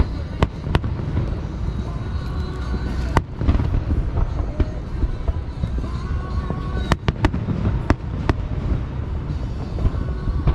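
Aerial fireworks going off: a continuous low rumble of shell bursts with several sharp cracks at irregular intervals.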